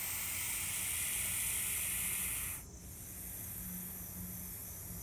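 Eastern hognose snake hissing: one long, forceful hiss that cuts off suddenly about two and a half seconds in. It is part of its defensive bluff, with its neck flattened into a cobra-like hood.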